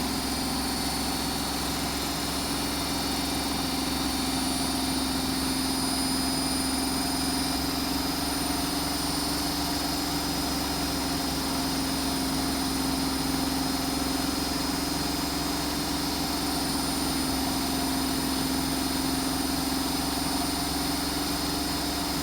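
Hotpoint WMFUG742 front-loading washing machine spinning a load of towels at steady high speed: a continuous motor whine with a steady hum.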